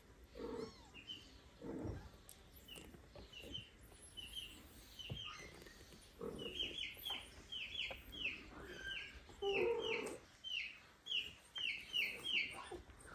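A tiny kitten squeaking in short, high-pitched mews that drop in pitch, a few at first, then quickly, about three a second, in the second half while an adult cat holds and licks it.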